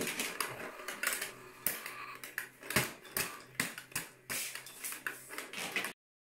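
Plastic toy hammer and fingers striking the pop-up moles of a plastic Whac-A-Mole game: irregular plastic clicks and knocks, a few a second, that cut off abruptly near the end.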